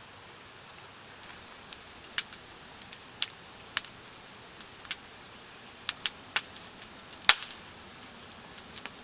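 Wood campfire crackling: irregular sharp pops and snaps over a faint steady hiss, one loud pop about seven seconds in.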